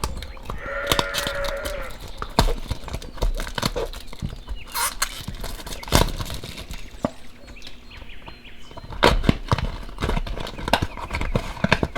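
Plastic packaging crinkling and tearing, with many sharp clicks and taps as a surprise toy package is opened by hand. A short pitched squeak-like tone sounds about a second in.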